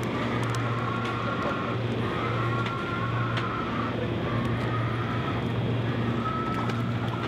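Diesel semi-truck hauling a livestock trailer, its engine running with a steady low hum as it pulls away. A higher squealing tone comes and goes four times over it.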